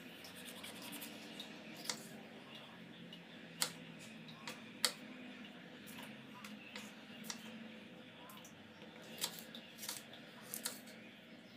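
Kitchen knife slicing bell peppers on a wooden cutting board: irregular sharp knocks of the blade striking the board, a few at a time with short gaps, the loudest about halfway through and a cluster near the end.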